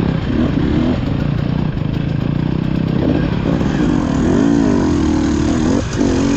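Off-road motorcycle engine being ridden hard, its revs rising and falling over and over as the throttle is worked, with a deeper dip and climb in pitch a little past the middle.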